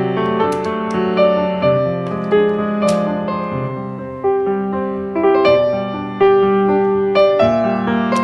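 Background piano music: a gentle melody of single notes over held low chords.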